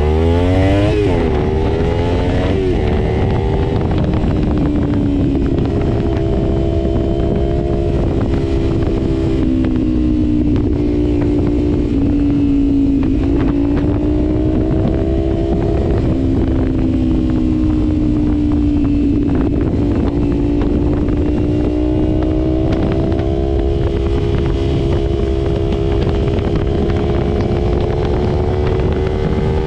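Kawasaki Ninja 300's parallel-twin engine through a Leovince exhaust with the baffle out, revving up and shifting up twice in the first three seconds, then cruising with its pitch rising and falling gently. A heavy low rumble of wind on the microphone runs under it.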